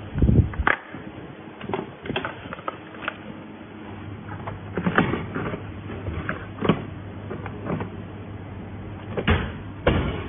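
Hard plastic air fryer housing knocking and clicking as it is handled and fitted onto the body, with a louder thump about half a second in and scattered sharp clicks after. A steady low hum runs underneath.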